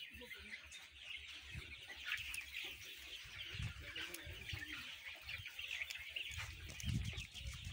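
A large flock of 40-day-old layer chicks peeping and chirping in a poultry house, many overlapping calls at once. A low rumble comes in near the end.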